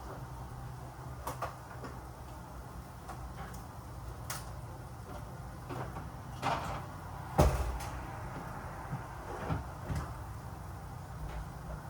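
Scattered light knocks and clicks of kitchen handling, with one sharper, louder knock about two-thirds of the way through, over a steady low hum.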